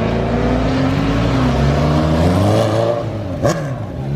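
Motor vehicle engine running and revving. Its pitch climbs about two seconds in, drops sharply about three and a half seconds in, then climbs again.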